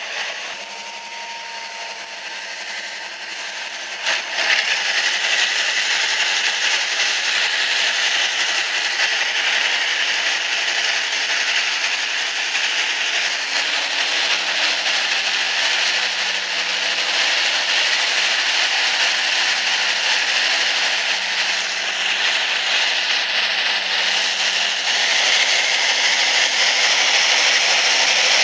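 Steady rushing rail and wind noise from a train on the move, recorded from a camera on a DA-class diesel locomotive. It jumps louder about four seconds in, as the train runs into a tunnel. The sound is thin and lacks bass, as if played back through a screen's small speaker.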